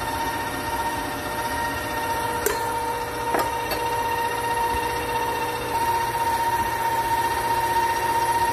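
Electric mixer running steadily at a constant speed, creaming butter and sugar, with a couple of light clicks about three seconds in.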